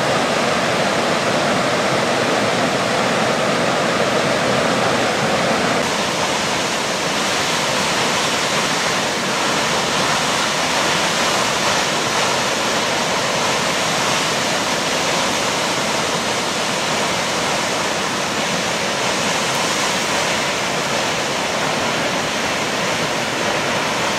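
Large waterfall: a loud, steady rush of falling water. Its tone shifts slightly about six seconds in.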